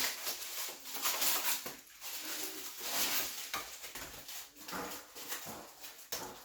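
Packaging rustling and crinkling, with scattered light knocks, as bike parts are unwrapped from the box.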